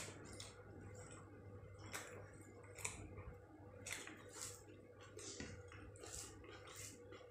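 Faint, scattered soft squelches and smacks of eating rice by hand: fingers mixing and mashing rice with curry on a plate, and chewing.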